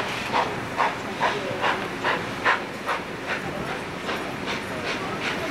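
Steam locomotive pulling away, its exhaust chuffing in a steady rhythm of about two and a half beats a second, heard from a carriage window.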